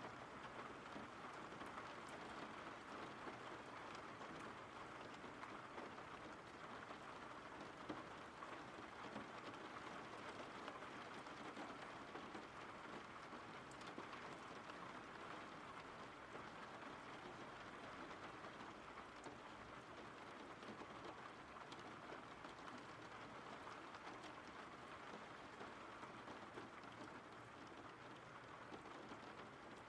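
Steady, faint rainfall: an even patter of raindrops with no thunder.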